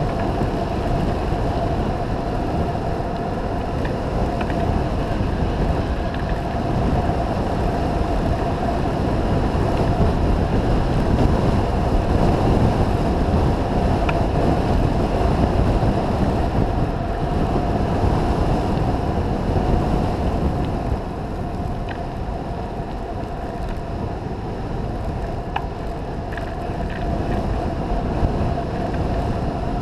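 Wind rushing over the camera microphone and mountain bike tyres rolling over a hard-packed dirt road on a fast downhill descent, with a steady hum throughout. The noise eases a little about two-thirds of the way through.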